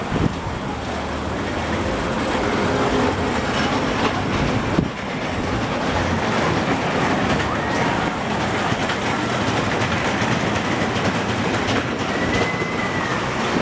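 Small children's roller coaster train running along its steel track with a continuous rumble and clatter, and a short high squeal near the end.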